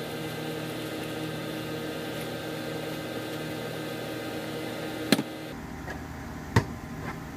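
Steady hum of kitchen machinery, with a few sharp clicks near the end as a knife works through a soft-shelled turtle on a cutting board. The background hiss thins out suddenly just after the first click.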